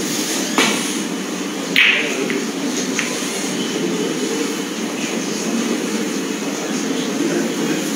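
Snooker shot: a light click of the cue tip on the cue ball, then about a second later a louder clack as the balls strike each other, and a smaller knock about a second after that, over a steady low background hum.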